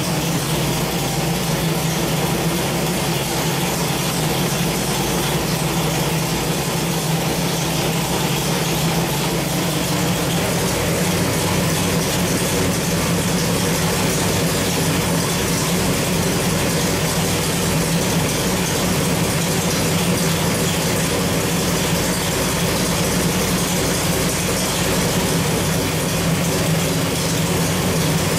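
Small-block Chevrolet 383 stroker V8 (586 hp) running at a steady, unchanging speed on an engine dynamometer, with no revving.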